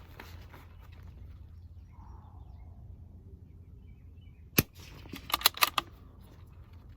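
A single sharp shot from a Bergara B-14R .22 LR bolt-action rifle, followed about half a second later by a quick run of metallic clicks as the bolt is cycled for the next shot.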